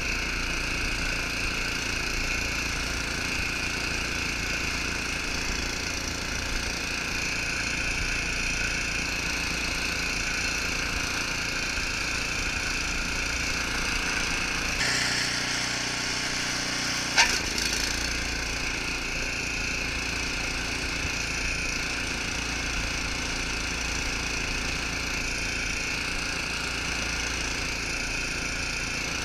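Snowblower engine running steadily while the machine throws snow out of its chute. The low rumble briefly thins out about halfway through, and a single sharp knock comes soon after.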